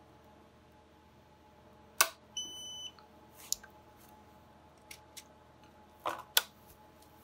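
A sharp click, then a fusion splicer's short electronic beep lasting about half a second, followed by a few lighter clicks and two more sharp clicks near the end as the splicer and fiber are handled.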